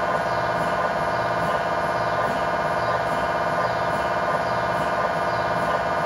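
GE MRI scanner's gradient coils pulsing through a coronal T1 fast spin echo (FSE-XL) sequence: a steady, loud electronic drone of many held tones with a fast, even repeating pattern.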